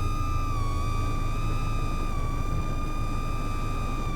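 AOS 3.5 V2 3.5-inch FPV quad's motors whining at a steady, nearly unchanging pitch, held at a steady throttle through a smooth orbiting turn.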